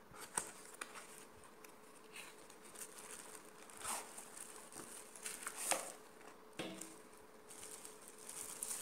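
Cardboard speaker box being opened by hand and a speaker in a white wrapping bag slid out and unwrapped: scattered clicks of the cardboard and crinkling rustles of the wrapping, the loudest about four and six seconds in, over a faint steady hum.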